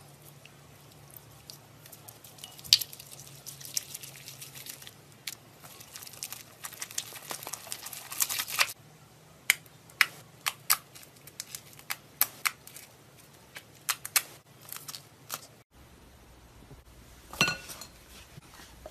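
Green foam-bead (crunchy) slime being pressed and squeezed by hand: a dense run of crackling and popping, then sparser sharp pops. Near the end, one brief ringing knock.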